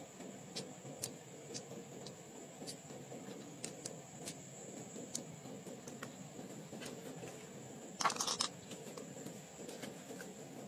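Faint wet handling of a pearl mussel's soft flesh as fingers dig pearls out, with scattered light clicks and a short scratchy rustle about eight seconds in.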